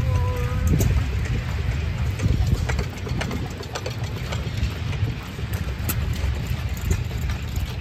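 Antique hit-and-miss gas engines running, a steady low chugging dotted with irregular sharp pops and clicks. A brief high tone sounds just after the start.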